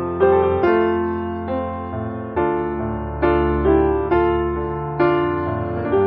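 Background piano music: gentle chords struck about once a second, each fading before the next.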